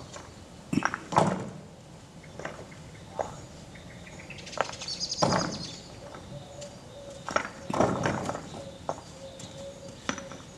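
Irregular knocks and clinks of paving bricks being set and tapped into place during street paving.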